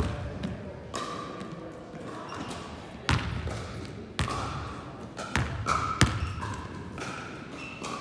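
Basketballs bouncing on a wooden sports-hall floor as players dribble, a handful of sharp irregular bounces that ring briefly in the large hall, with short squeaks of sneakers on the court between them.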